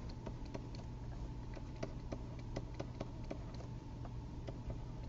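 Faint, irregular clicks and taps, several a second, from a pen stylus writing on a drawing tablet, over a low steady hum.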